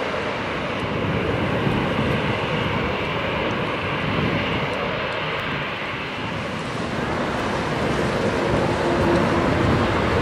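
Twin jet engines of a Boeing 777 airliner running at high power for the take-off roll, a steady rushing jet noise that grows louder over the last few seconds.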